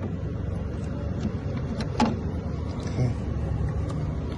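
Light clicks of a key and small parts being worked by hand, two sharper ones about two and three seconds in, over a steady low rumble.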